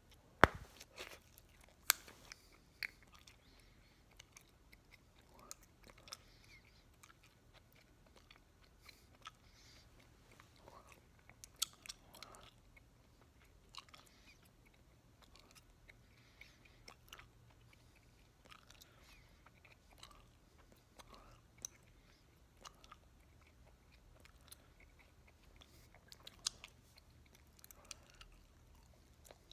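A large bubblegum bubble pops about half a second in. After that comes open-mouthed chewing of three pieces of Bubbaloo bubblegum, with scattered sharp clicks and smacks.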